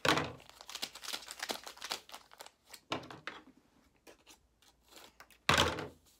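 A small packet of sour sugar mix crinkling as it is handled and cut open with scissors: a run of crackly rustles and snips, with louder knocks at the start and again about five and a half seconds in.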